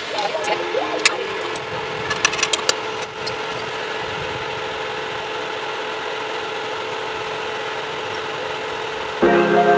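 Chickpea masala gravy bubbling in a pressure cooker pot on the stove: a steady hiss, with a few light clicks in the first few seconds. Background music comes in near the end.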